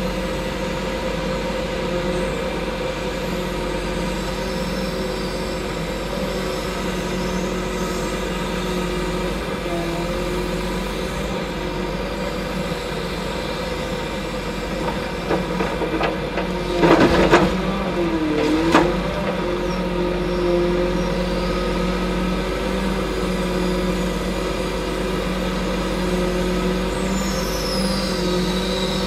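Kesla hydraulic log-loading crane working off a truck, its engine running steadily. About 17 seconds in come a few loud knocks and clatter as the grapple closes on logs, with another knock about two seconds later.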